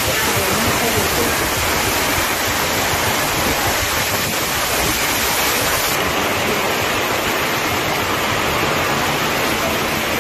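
Heavy rain and muddy floodwater rushing down a village road, a typhoon mudflow, making a steady unbroken rushing noise.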